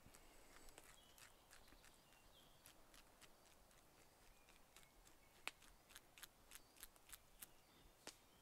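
Very quiet handling of a gutted raw trout, cut and scraped with a sharp stone flake: faint scattered clicks and small scrapes. They come more often in the second half, the loudest about halfway through.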